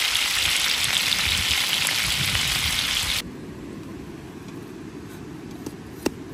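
Food sizzling in hot oil, a dense steady hiss that cuts off abruptly about three seconds in, leaving a much quieter background hiss. A single sharp click comes near the end.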